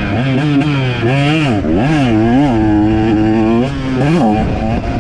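KTM 125 single-cylinder two-stroke dirt bike engine being ridden hard, revving up and dropping back several times as the throttle opens and closes, with a steadier stretch in the middle.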